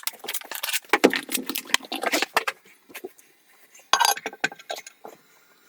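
Irregular clinks, clicks and knocks of hand tools and hardware being handled, most of them in the first two and a half seconds and another short cluster about four seconds in.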